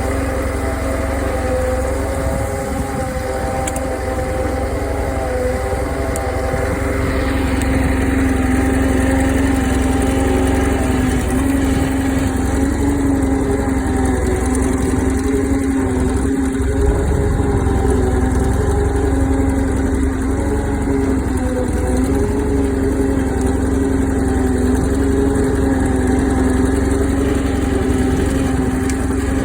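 Case 446 garden tractor engine running steadily while pulling a tree branch; it gets a little louder several seconds in, then holds an even pitch.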